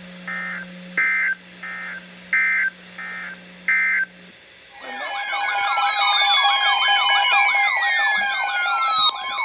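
Six short buzzy data bursts of an Emergency Alert System end-of-message signal, closing the weather warning, over a low radio hum that cuts off. About halfway through comes a loud mix of siren-like wails and long falling whistles, which peaks near the end.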